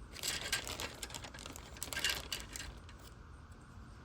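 Plastic model-kit parts trees being handled, with light clicking and rustling as the sprues knock together, in two spells during the first three seconds.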